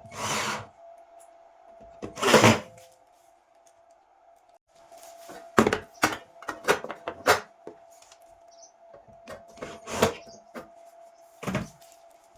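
A series of handling knocks and scrapes, a few clustered together in the middle, over a faint steady tone.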